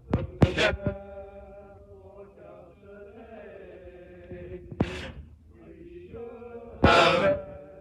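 Male voice choir singing held notes, broken by loud crackling bursts of noise about half a second in, near five seconds and near the end, from a faulty recording.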